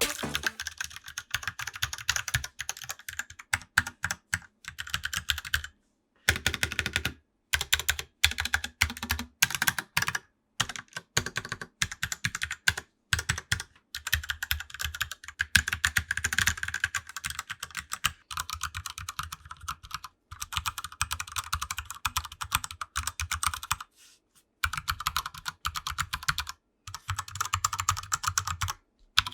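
Fast typing on a Ducky One 2 mechanical keyboard fitted with O-ring dampeners, a dense clatter of keystrokes broken by several short silent gaps.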